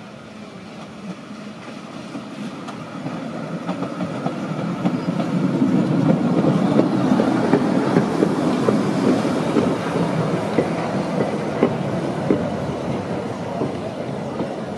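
Tram approaching and rolling past at close range, its wheels clicking on the rails over a steady rumble. It grows louder over the first six seconds or so and stays loud as the cars go by.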